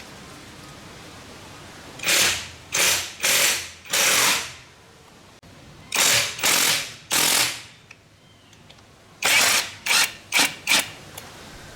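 Hand tool worked in short rasping strokes on lawn mower parts, in three bursts of three to five strokes with pauses between.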